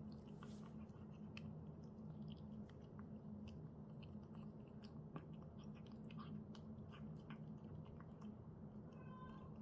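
A cat crunching dry kibble, with a scatter of small crisp crunches and clicks over a steady low hum.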